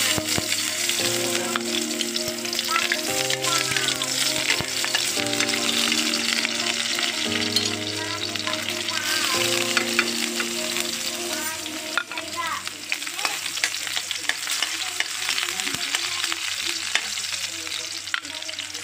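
Chopped garlic frying in hot oil in a metal wok, a steady crackling sizzle. Soft background music plays underneath.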